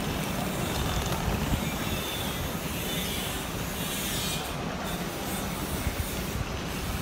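Steady background noise of road traffic and a busy crowd of travellers, a low rumble with an even hiss over it.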